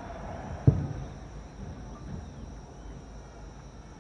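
One sharp, low boom from a distant aerial firework shell bursting, about a second in, with a short rumbling tail over a steady background noise.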